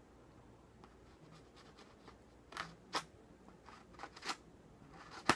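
Packaging being handled and opened by hand: a few short rustles and scrapes, then a sharp click near the end.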